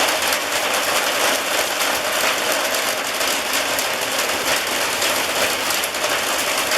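Heavy rain pouring down: a loud, steady, dense patter of drops.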